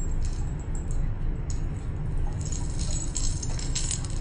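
Stacked metal bangle bracelets on a wrist jingling and clinking together as the arm moves. The clinks are light and irregular and get busier about halfway through, over a steady low hum.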